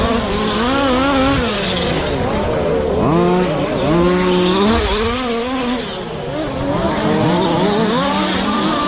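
Several radio-controlled short course trucks racing, their motors whining and revving up and down in overlapping pitches as they accelerate and brake through the corners.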